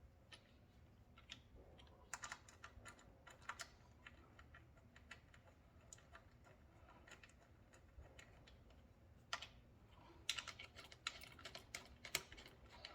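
Faint, scattered metallic clicking of small bolts and lock washers being handled and started into a cover by hand, in short flurries of clicks.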